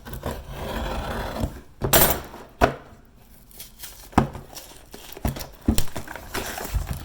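A parcel being cut open with scissors: cutting and rustling of the packaging, broken by several sharp clicks and knocks.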